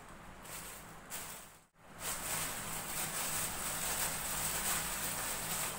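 Plastic packaging rustling and crinkling as it is handled to be opened, with a brief drop to near silence about a second and a half in.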